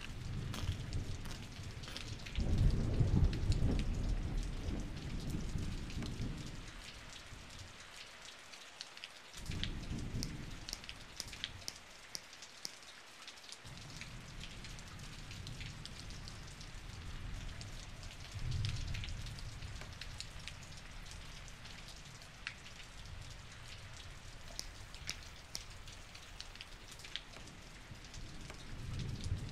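Steady rain falling, with many small drop ticks, under low rumbles that swell and fade several times, the strongest a few seconds in.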